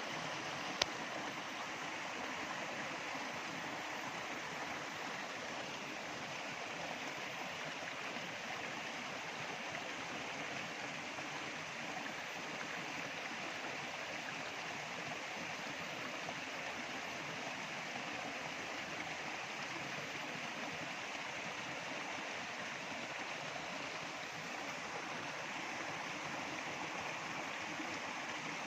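Stream water flowing steadily, a continuous even rush with no pauses. There is a single brief click about a second in.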